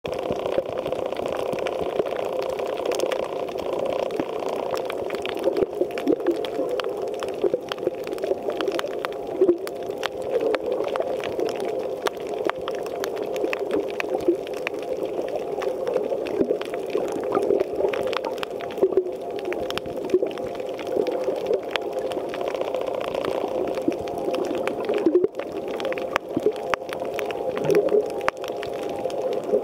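Underwater sound picked up by a camera on a coral reef: a steady, wavering drone of water noise, peppered with many short, sharp clicks.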